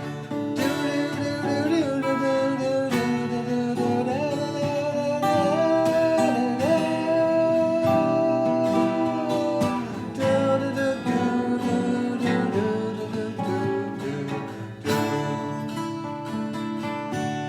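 Instrumental break of a song: guitar accompaniment with a lead melody line that slides between long held notes.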